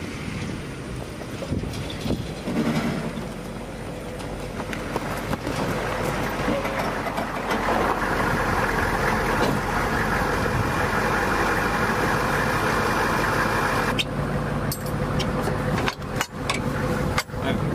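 Humvee (HMMWV) diesel engines running, growing louder and steady about eight seconds in. Near the end, sharp clicks and knocks of tools at a Humvee wheel sound over an idling engine.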